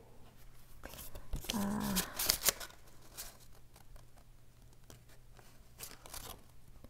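Paper packaging and a leather pouch being handled: scattered rustling and crinkling, busiest in the first two and a half seconds. A short hummed voice comes about a second and a half in.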